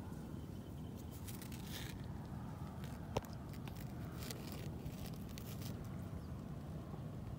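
Faint rustling and scraping of a baby monkey in a diaper crawling among loose rocks, over a steady low wind rumble on the microphone, with one sharp click about three seconds in.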